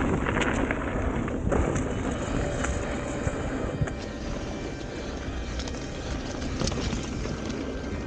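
Mountain bike riding fast over a dirt trail: tyre rumble with frequent knocks and rattles from the bike over rough ground, and wind on the microphone.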